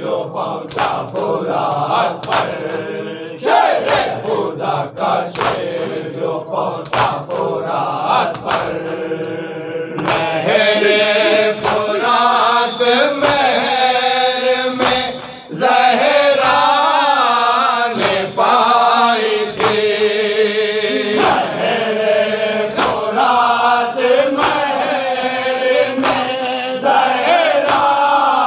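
Group of men chanting a noha, an Urdu mourning lament, in unison behind a lead reciter, with the steady slaps of matam, hands beating on chests, keeping time. From about ten seconds in, the chorus grows louder and fuller.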